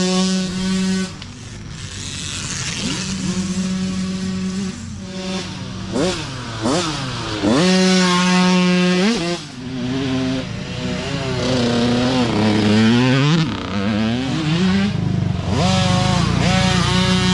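Several youth mini dirt bikes racing past one after another, their small engines revving up in rising pitch and dropping off sharply over and over as the riders throttle and shift through a turn.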